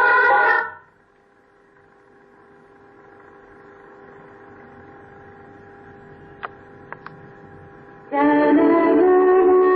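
A recorded prayer song playing through a school bell system's horn speaker and amplifier stops, leaving a steady amplifier hum with three short clicks about six and a half to seven seconds in. Music starts again from the speaker near the end.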